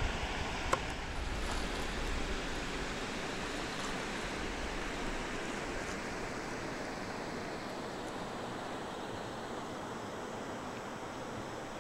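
Lake water lapping and rippling against the hull of a moving canoe, a steady wash, with a single sharp knock about a second in.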